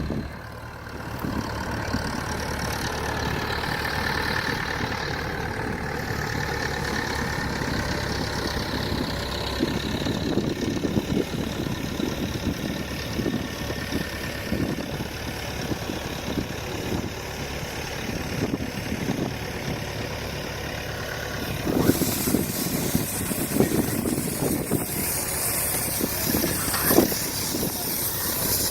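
A tractor engine runs steadily while powering a Tanco Autowrap bale wrapper wrapping haylage bales. About three-quarters of the way through, a steady hiss joins the engine.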